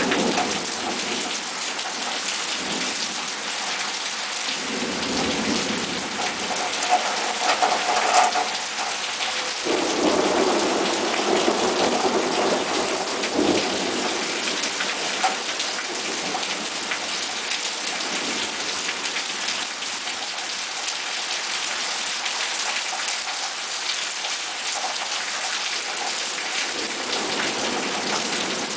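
Heavy rain pouring steadily in a thunderstorm, with thunder rumbling, swelling about five seconds in and again from about ten to fourteen seconds in.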